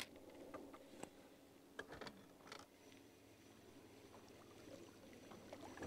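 Near silence: faint outdoor ambience with a few faint ticks in the first couple of seconds.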